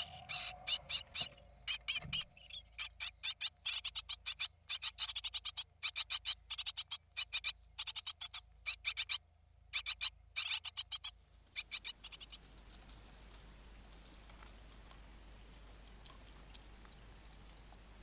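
Great tit nestlings begging: rapid runs of short, high-pitched cheeps that stop about twelve seconds in, leaving only a faint hiss.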